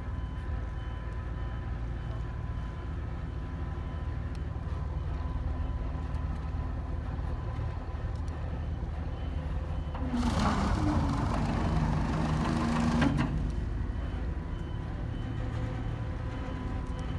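Boat's diesel engine running with a steady low rumble as the vessel comes in alongside. Past the middle, a louder rushing noise with a low tone runs for about three seconds, then stops.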